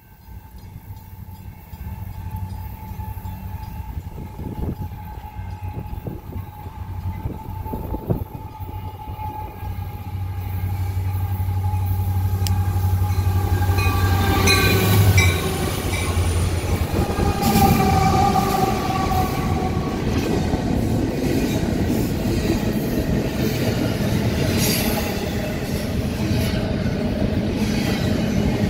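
Freight train with diesel locomotives approaching and passing. The engines rumble louder until about fifteen seconds in, with a steady horn tone that drops in pitch as they pass. Then the cars roll by with wheel noise and some squeal.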